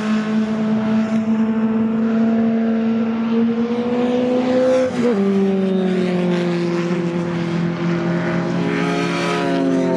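Historic Lotus Elan race car's engine running hard at high revs, its pitch climbing slowly, then dropping sharply about halfway through and holding steady.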